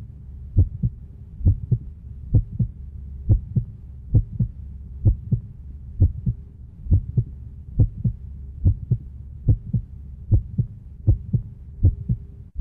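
A heartbeat: evenly repeating pairs of low thumps, about 68 beats a minute, over a steady low hum.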